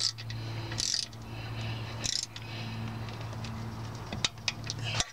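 Ratchet on a long extension tightening an oil pan bolt to torque: short bursts of ratchet clicking about a second apart, then a few separate sharp clicks near the end. A steady low hum runs underneath.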